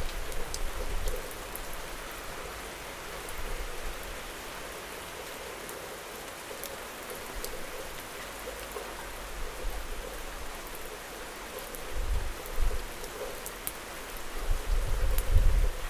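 Steady rain falling on hard surfaces, with single drops ticking sharply close by. About twelve seconds in, and again near the end, a low rumble swells and fades.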